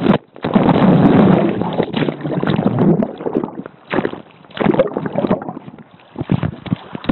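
Turbulent river rapids churning and splashing around a camera tossed in the water after a canoe capsized. A dense rush for about the first three seconds, then it breaks into irregular splashes and knocks with brief lulls.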